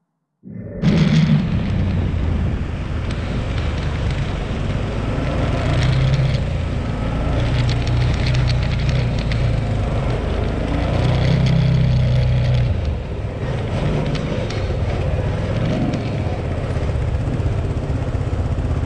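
ATV (quad bike) engine running as it rides over sand, its pitch and level rising and falling with the throttle. The sound cuts in suddenly about half a second in.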